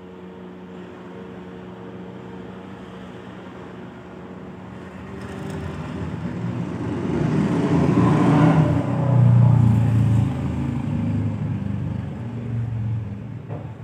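A vehicle passing by: a broad rushing sound that swells to its loudest about eight to nine seconds in, then fades. Before it builds there is a steady low hum.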